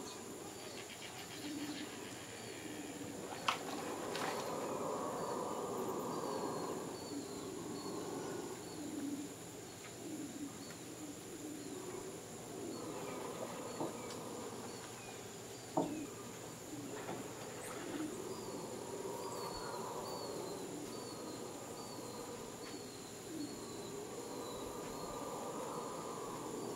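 Howler monkeys roaring in long swelling waves that rise and fade several times. Beneath and above them run a steady high insect whine and runs of short, high, evenly repeated chirps, with a few sharp clicks.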